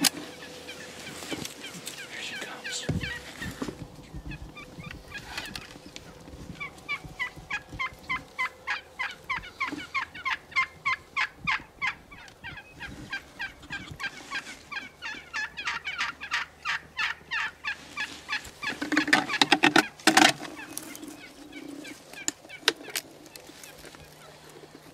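Wild turkey calling: a long, evenly spaced run of yelp-like notes, about three a second, with the loudest, densest burst of calling about 19 seconds in, cut by a sharp crack just after.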